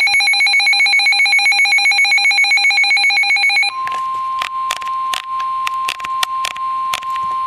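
A loud, rapidly warbling electronic ring, like a telephone bell, cuts off about three and a half seconds in. It gives way to a steady single-pitched alert tone, the weather-radio warning alarm that leads into a severe thunderstorm warning, with sharp clicks and crackles over it.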